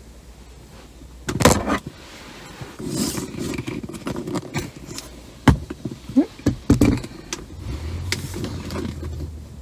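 Handling noise from a phone on a selfie stick being moved and turned: irregular knocks, clicks and rubbing, loudest about a second and a half in and again between five and seven seconds in.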